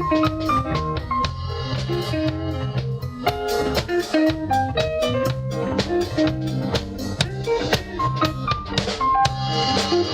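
Band music with a steady drum-kit beat, a bass line and a melody of held notes.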